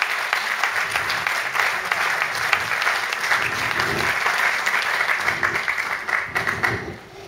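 Audience applauding: a dense clapping that dies away near the end.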